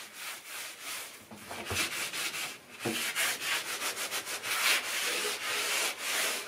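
Damp sponge scrubbing a painted ceiling in quick repeated back-and-forth strokes, rubbing off black mould after a mould-remover treatment; the rubbing grows louder about halfway through.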